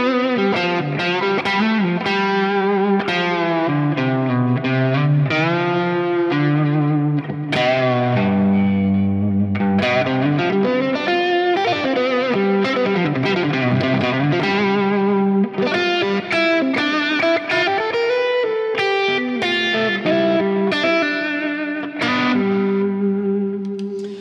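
Electric guitar (a Kiesel Delos) played through a Fractal Audio Axe-Fx III amp-modeler preset with dual delay and reverb: melodic lead lines and chords with frequent string bends and slides, ending on a held note.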